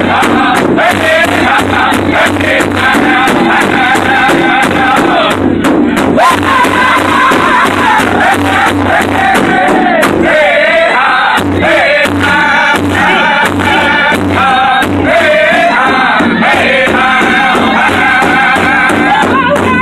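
Powwow drum group: several men sing together in high voices around one large drum, striking it in unison with drumsticks in a steady beat.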